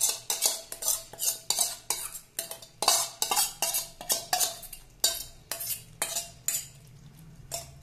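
Metal spoon scraping and tapping against a stainless-steel bowl, emptying out curd-coated soya chunks: quick repeated strokes, about three a second, that stop near the end.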